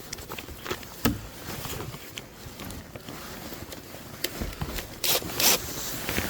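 Handling and movement noises: scattered clicks, knocks and scrapes, with two loud, short scraping swishes about five seconds in.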